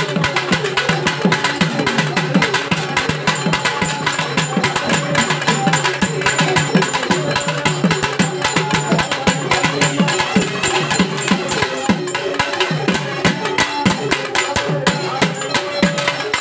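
Fast, continuous drumming on a double-headed festival drum, the strokes packed closely together at an unbroken pace.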